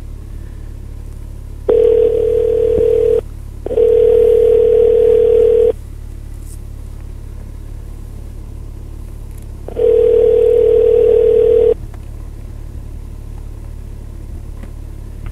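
Telephone ringback tone of an outgoing call: three steady rings, each about two seconds long, the first two close together and the third after a pause of about four seconds, over a steady low rumble.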